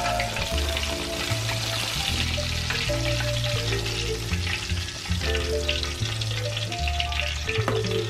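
Breaded catfish fillets deep-frying in hot oil in a cast iron skillet: a steady crackling sizzle, with a few light clicks of a metal spatula as the fillets are lifted out. Background music with a bass line plays under it.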